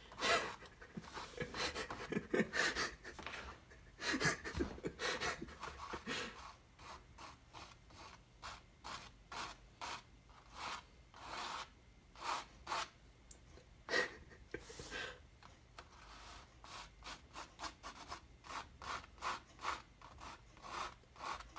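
Scissor blades dabbing and scraping black paint onto a stretched canvas: a run of short, irregular scratchy strokes.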